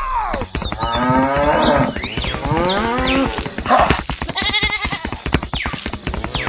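Cows mooing, several calls overlapping one another.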